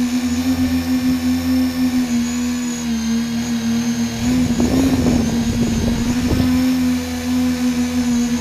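Tri-copter's electric motors and propellers humming steadily at one pitch that drifts slightly up and down, heard from the GoPro mounted on the craft. A rough, gusty rumble joins it from about four seconds in for a few seconds.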